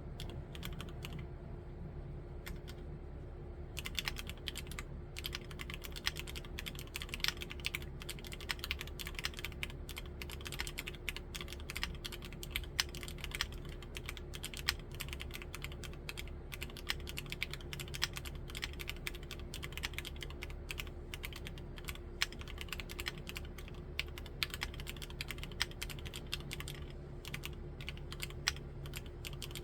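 Typing on an Akko MOD005 full-aluminium mechanical keyboard with Gateron Milky Yellow Pro linear switches: a clacky run of keystrokes, a few scattered presses at first, then fast continuous typing from about four seconds in.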